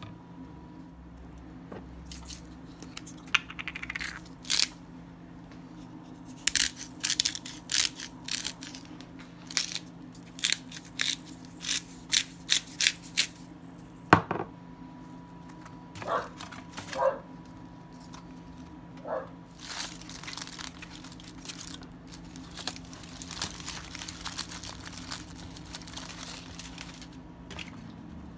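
Aluminium foil and paper crinkling in repeated sharp bursts as food is handled and wrapped, denser near the end, with one sharp knock about halfway through. A steady low hum sits underneath.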